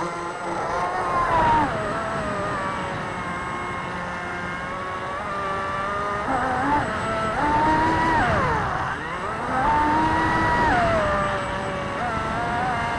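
RC boat's motor heard through the onboard camera, its whine rising and falling in pitch with the throttle, over the rush of water against the hull. Near the middle the pitch dips sharply and then climbs again.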